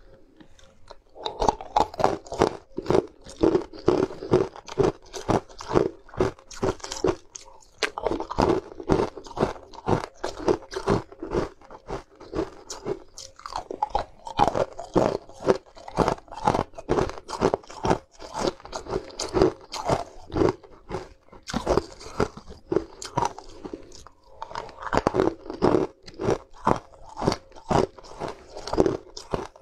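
Pieces of sweet ice bitten and crunched between the teeth, close to the microphone: rapid, sharp cracks several times a second, starting about a second in and keeping on with brief pauses between mouthfuls.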